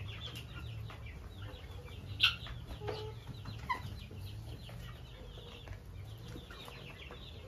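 Hens and helmeted guineafowl feeding: soft clucks and many quick pecking ticks on the grain-strewn ground. A single sharp call comes about two seconds in, and a couple of short falling chirps follow within the next two seconds.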